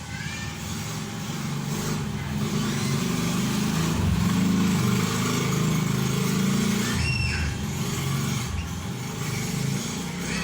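A passing road vehicle's engine rumble builds to a peak mid-way and eases off near the end. Short bird chirps come through near the start and about seven seconds in.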